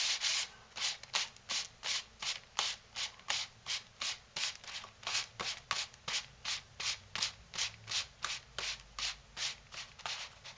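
Folded paper rubbing against paper in short, even strokes, about three a second.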